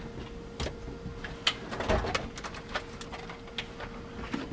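Scattered clicks and light knocks from hands working wiring and plastic parts loose under a truck's dashboard, over a steady hum.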